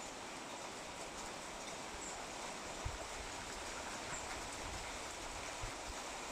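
Steady rain falling, an even hiss, with a few soft low thumps about three and five and a half seconds in.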